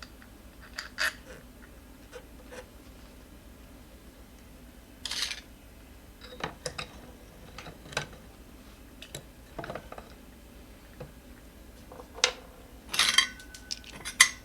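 Small metal parts such as axle washers and a wheel axle being handled: scattered light clinks, taps and scrapes, with a louder cluster of clinks near the end.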